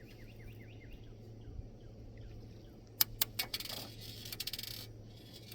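Steel BBs clicking against a BB pistol magazine as they are pressed into its holes: a few sharp clicks about three seconds in, then a quick rattle of small clicks. A bird chirps faintly in the first half, over a low steady hum.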